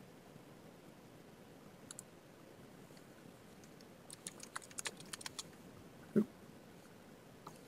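Computer keyboard typing: a quick run of keystrokes about four seconds in, lasting about a second and a half, with a single click about two seconds in. A short dull thump just after six seconds is the loudest sound.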